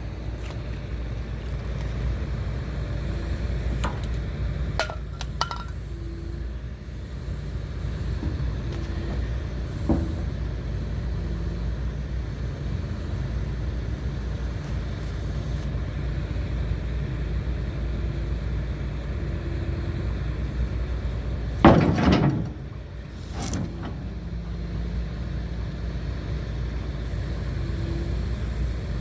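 A large engine running steadily at a low idle, with a short loud burst about 22 seconds in and a smaller one a second and a half later.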